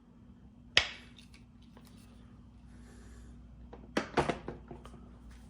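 A sharp clack about a second in, then a quick run of clacks near four seconds: a metal PEX crimping tool being handled and set down.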